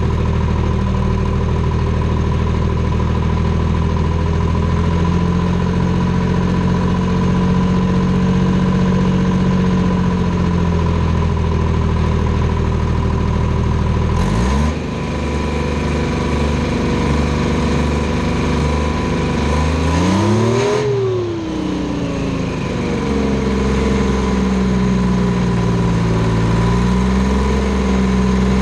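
Detroit Diesel 3-53 three-cylinder two-stroke diesel in a Clark 664B skidder, heard close to its exhaust stack. It runs at a steady speed, changes suddenly about halfway through, swings up and back down once about twenty seconds in, then settles to a steady speed again.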